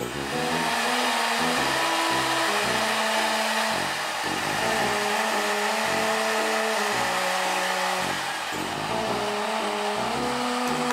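Blow dryer running steadily with an even rushing of air, drying a Maltese puppy's damp coat after its shampoo while the fur is brushed and combed; background music plays underneath.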